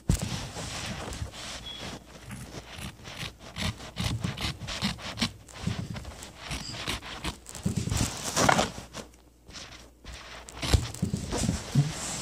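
Irregular rubbing and scraping of cloth right against the phone's microphone as it is handled, broken by knocks, the loudest a little before the end.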